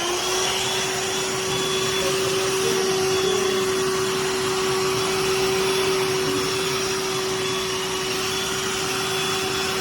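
BLACK+DECKER Dustbuster cordless handheld vacuum running steadily: an even rush of air with a constant motor whine.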